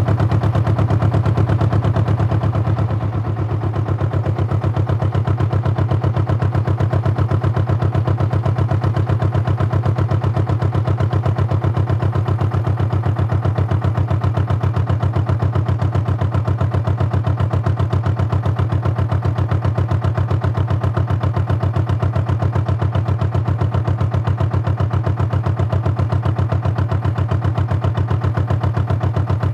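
Canal narrowboat's inboard diesel engine heard on board, running steadily with a deep, even chugging beat. The level dips briefly about three seconds in, then holds steady.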